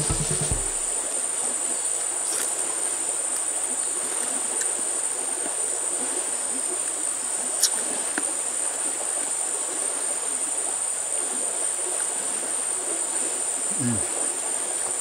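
Steady, high-pitched drone of insects calling, over the even rush of a stream. A single sharp click sounds about halfway through.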